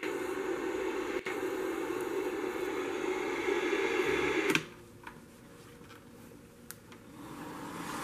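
Portable TV's small speaker hissing with static from an untuned channel, cutting off suddenly a little past halfway; a couple of faint clicks follow.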